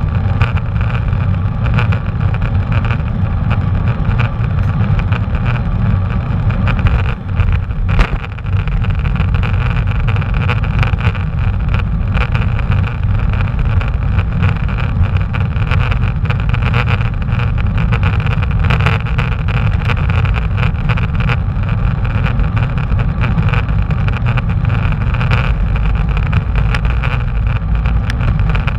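Steady low rumble of wind buffeting the microphone, with tyre and road noise, from a bicycle being ridden. A single sharp knock about eight seconds in.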